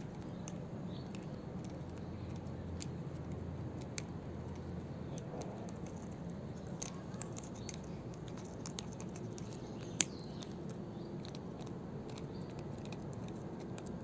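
Cat gnawing on a plastic clothes peg: scattered small clicks of teeth on plastic over a low steady background hum, with the loudest click about ten seconds in.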